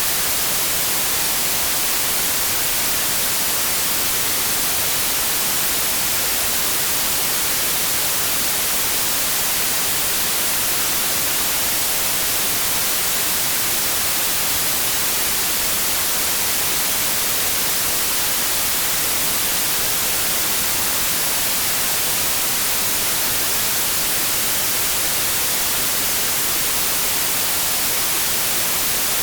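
Synthetic white noise: a steady, even hiss, heaviest in the treble, with no change in level.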